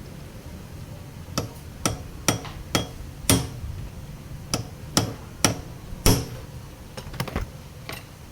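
About a dozen sharp, irregularly spaced knocks, like hammer or tool strikes, over a low steady hum. The loudest come about three and six seconds in.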